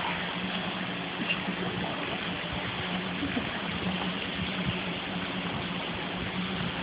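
Steady rushing noise of running water, with a low steady hum under it.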